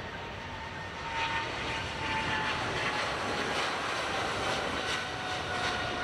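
Airliner's engines during its takeoff: a steady roar with a thin whine that slowly falls in pitch.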